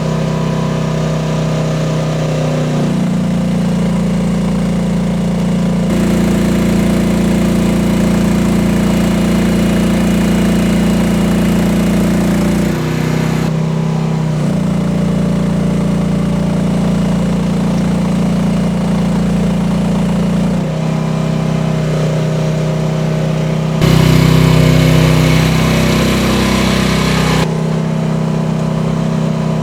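Gas-engined Rippa R10 mini excavator running under hydraulic load while it lifts and drives with a 550-pound load. The engine note is steady, then shifts suddenly in pitch and loudness several times.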